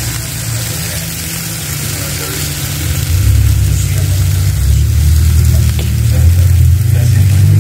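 Whole tomatoes, garlic and onion sizzling as they roast dry in a frying pan. Under it runs a loud low rumble, like an engine, that gets louder about three seconds in.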